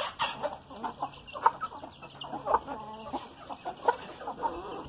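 Backyard chickens clucking, a flock of hens with a rooster, giving many short clucks with a longer wavering call about two and a half seconds in.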